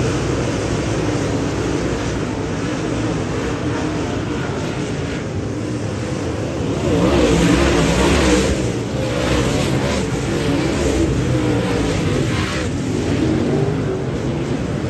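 Dirt-track Modified race car engine running hard, its revs rising and falling, with the loudest surge about seven to eight seconds in and smaller ones after.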